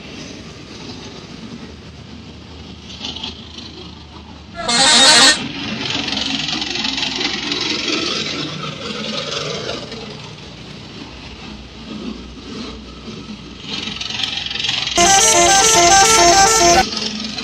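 A bus's musical 'telolet' air horn sounding twice over street traffic noise: a short blast about five seconds in, then a longer one near the end that steps through several notes like a little tune.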